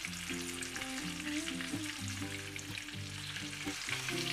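Gram-flour-and-semolina-coated pomfret shallow-frying in hot oil in a pan, a steady sizzle with fine crackles, over soft background music.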